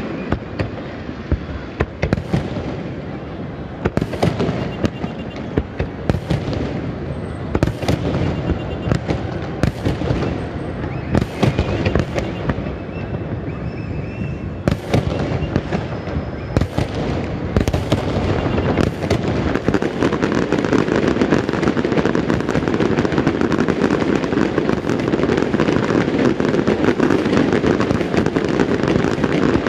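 Fireworks display: aerial shells bursting with sharp bangs every second or two, building about two-thirds of the way in into a dense, continuous barrage that is louder.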